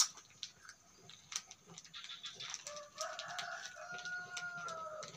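A rooster crowing once, a single drawn-out call of about two and a half seconds that starts a little past halfway and sags slightly in pitch at the end. Light clicks and rustles of hands handling bananas run underneath.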